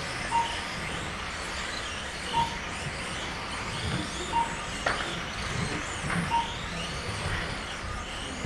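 Kyosho Mini-Z electric RC cars racing on a carpet track: the motors whine, rising and falling as the cars speed up and slow down. Short beeps from the lap-timing system come about every two seconds, and there is a sharp click near the middle.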